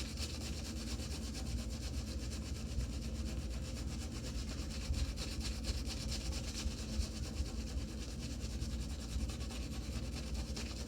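Omega Mixed Midget shaving brush being loaded on a puck of shaving soap: the bristles scrub steadily over the soap surface in quick, continuous swirls.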